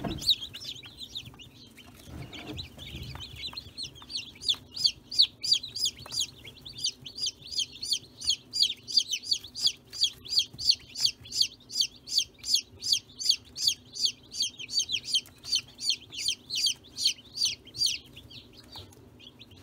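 Newly hatched chicken chicks peeping in a brooder: a steady run of high, short, falling peeps, about three a second, from about four seconds in until near the end.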